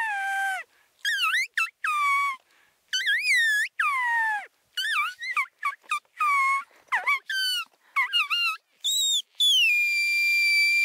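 A string of high, squealing elk calls: short notes that swoop and mostly slide down in pitch, then near the end a long, steady high note like the peak of a bull elk's bugle.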